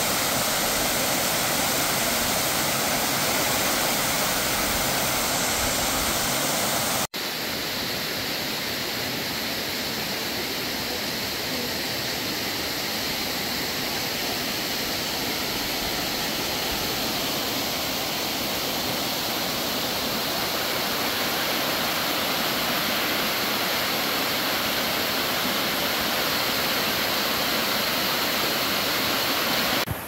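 Waterfall pouring with a dense, steady rush of water. The sound breaks off abruptly about seven seconds in and resumes slightly quieter.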